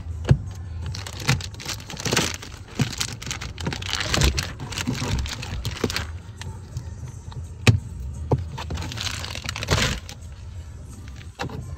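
Protective plastic film being peeled off a car's interior door panel and crumpled by hand: irregular rustling and crinkling, with a few sharp clicks.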